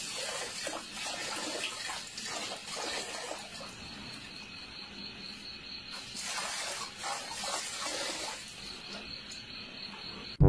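Water running from an outdoor tap and splashing into a metal bowl, with a dog lapping at the stream.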